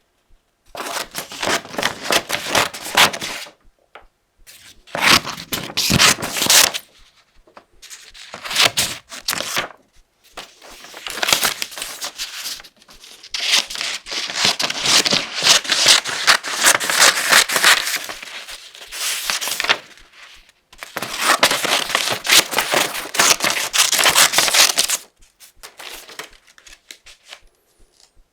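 Scissors cutting through thin paper sheets: runs of quick snips a few seconds long with short pauses between them, sparser near the end.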